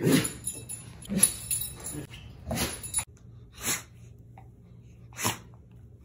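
Doberman sneezing five times in a row, short sharp sneezes about a second apart.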